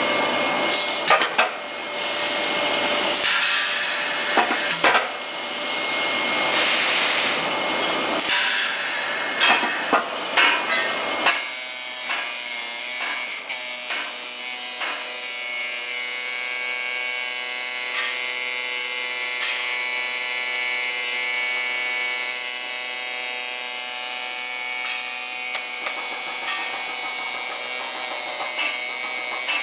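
Foundry moulding work at a green sand moulding machine: knocks and scraping of the wooden moulding box against the machine over a loud, noisy background for the first eleven seconds or so. After that comes a steadier machine hum of several held tones, with a few lighter knocks.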